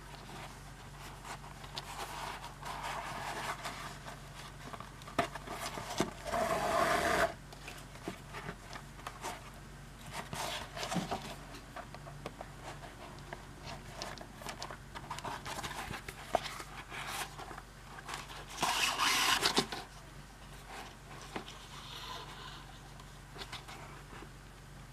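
Hand-stitching leather: a needle and thread are pushed and drawn through the stitching holes, with quiet rubbing and small ticks. Two longer scratchy pulls of thread through the leather come about six seconds in and again near nineteen seconds. A faint steady hum lies underneath.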